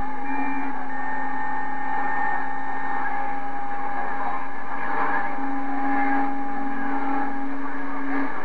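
Galaxy CB radio receiving a strong keyed-down carrier that carries no audio: a steady hiss from the speaker with thin steady whistles at several pitches that come and go, the beat tones of other stations.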